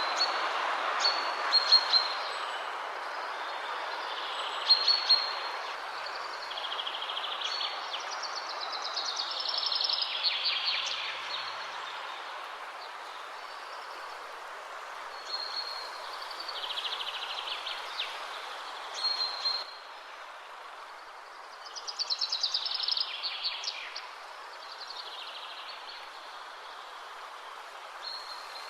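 Wild birds singing and calling: short high chirps repeat every few seconds, and two louder descending trilled phrases come about ten seconds and about twenty-three seconds in. Under them runs a steady outdoor hiss.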